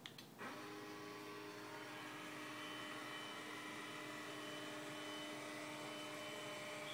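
Vizio motorized TV wall mount's electric motor: a couple of clicks, then the motor starts about half a second in and runs with a steady hum as it tilts the TV up.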